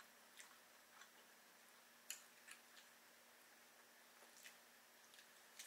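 Near silence: faint scattered clicks and small wet handling sounds of eating takeout ribs and chicken by hand, over a faint steady room hum.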